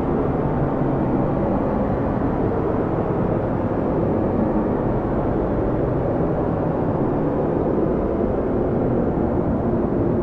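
Strong wind of a snowstorm blowing steadily: a dense, even rush of low noise with no single gust standing out.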